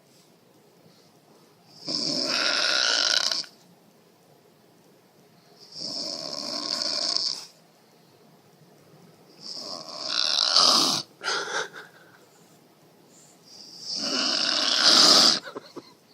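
A woman snoring loudly in her sleep: four long snores, one about every four seconds, with quiet breathing between them.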